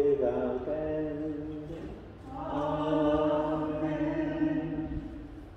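Slow sung chant: a phrase that bends and ends about two seconds in, then a long held note that fades out near the end, over a steady low tone.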